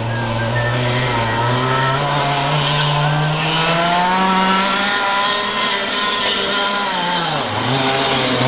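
Racing kart engine running at high revs, its pitch climbing steadily for about five seconds as it accelerates, then dropping sharply off the throttle near the end and picking up again.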